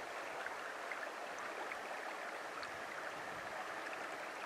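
Shallow mountain creek running over rocks: a steady rush of water, with small gurgles and splashes scattered through it.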